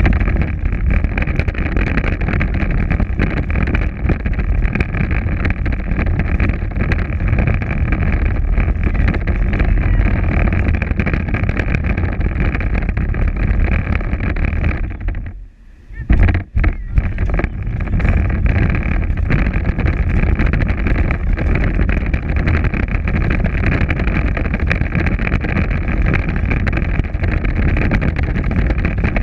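Power Wheels ride-on toy car driving over asphalt: its electric drive motors and gearboxes whine steadily over the low rumble of hard plastic wheels on rough pavement. About halfway through it stops for about a second, cuts in and out twice, then runs on again.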